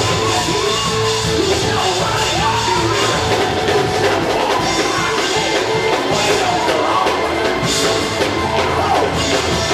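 Loud live church music with voices singing and shouting over it, steady held notes underneath.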